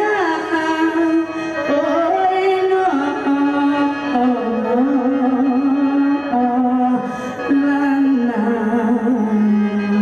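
A singer performing a slow, mournful Thai song over instrumental backing. The voice holds long notes with wavering ornaments and slides between them, and settles onto a long low note near the end.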